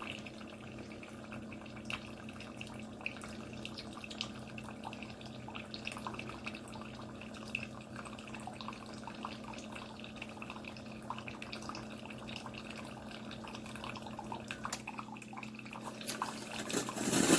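Chefman single-serve drip coffee maker brewing: coffee dripping and trickling into the cup over a steady low hum.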